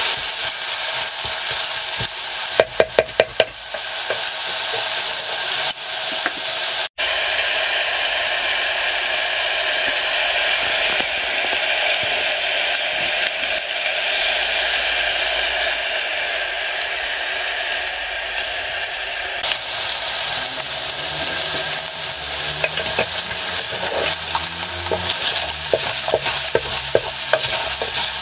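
Diced bacon and carrots sizzling in a Trangia pan as the bacon crisps and lets out its fat, with a wooden spoon stirring and scraping through them. There is a run of sharp taps of the spoon on the pan a couple of seconds in and more stirring clicks near the end. The sound briefly cuts out about seven seconds in, then runs as a steadier sizzle without stirring.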